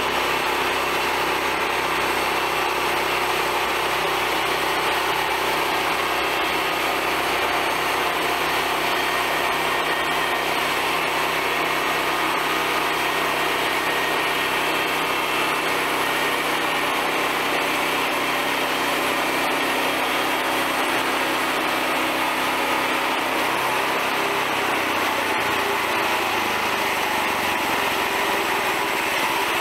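Small gasoline engine of a portable band sawmill running steadily under load as the band blade cuts lengthwise through a log. About 24 seconds in, the engine's low hum changes pitch.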